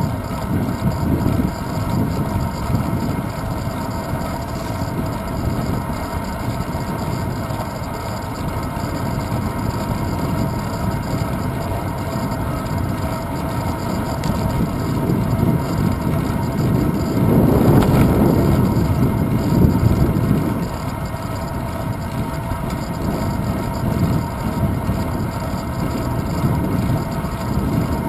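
Wind buffeting and road rumble picked up by a handlebar-mounted GoPro Hero 2 on a bicycle riding along a city street, swelling louder for a few seconds just past the middle.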